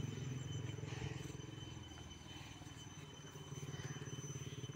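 A low engine hum running steadily in the background, easing off about two seconds in and coming back up a little past the middle, with two faint steady high tones above it.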